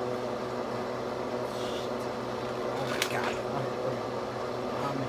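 Kitchen range hood fan running with a steady hum.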